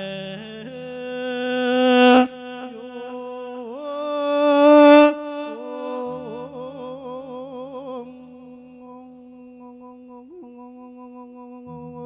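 A monk sings a drawn-out, wordless melismatic phrase of Thai 'lae' sermon chant into a microphone over a steady held accompaniment tone. The voice swells and cuts off twice in the first five seconds, then wavers with vibrato and fades, leaving the quieter held tone near the end.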